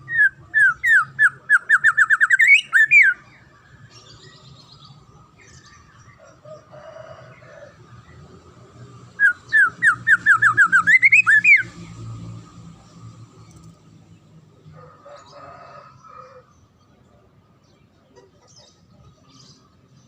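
Songbird singing a fast series of downward-slurred whistled notes that builds to a rising flourish, about three seconds long. The same phrase comes again about nine seconds in, with softer chirps and a faint low hum between.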